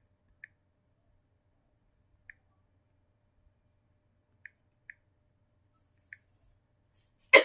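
Tablet on-screen keyboard clicks as someone types: about five short, faint ticks spaced a second or two apart. Just before the end comes a loud, sudden handling thump.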